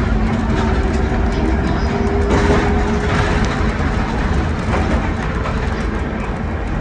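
A 1928 Kawasaki-built wooden tram with nose-suspended traction motors running along its track: a steady deep rumble of wheels on rail with a light clatter, and a faint motor whine over it.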